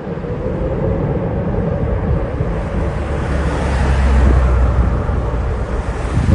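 Boeing 747 jet engines, a deep rumble with a faint whine that grows louder toward the middle, heard under heavy wind buffeting the microphone.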